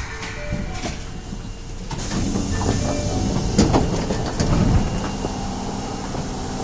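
Subway station sounds while the train stands at the platform with its doors open: a steady rumble that swells for a few seconds in the middle, with a few sharp clicks, then settles.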